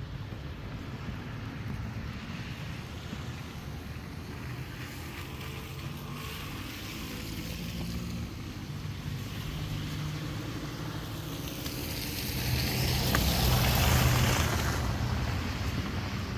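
Traffic on a snowy street: a low steady rumble, then a car passing with tyre hiss that swells and fades about twelve to fifteen seconds in.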